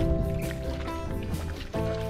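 Background music: held chords, with a new chord coming in near the end.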